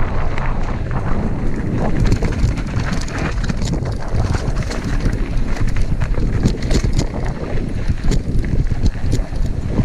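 Mountain bike ridden along a dirt trail, with wind buffeting the microphone over tyre noise and frequent short clicks and rattles from the bike.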